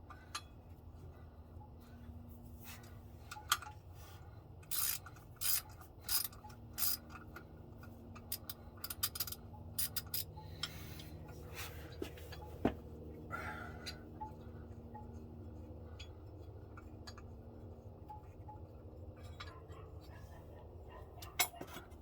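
Hand tools and metal engine parts clinking, clicking and scraping now and then during a timing chain job, busiest in the first half. A steady low hum runs underneath.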